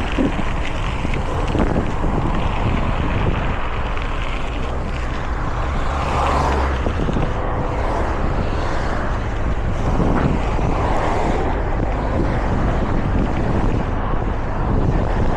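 Wind buffeting the microphone of an Insta360 GO 3S action camera during a mountain-bike ride, a steady noise with heavy low rumble.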